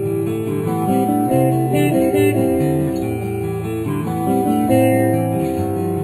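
Background music: a guitar piece, picked notes moving over sustained low notes at an even, steady level.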